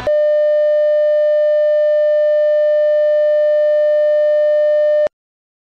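Broadcast test-card tone: a single steady tone held for about five seconds, cutting off suddenly.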